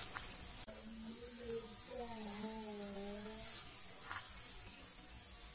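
A faint, indistinct voice drawing out a few long, slow syllables over a steady high hiss. The recordist takes it for an unexplained voice mimicking a villager's speech, sounding very close to the camera.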